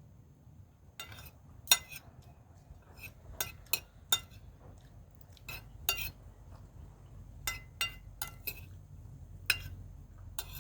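Cutlery clinking against a dish while eating: a dozen or so sharp clinks at irregular intervals, the loudest one near the start.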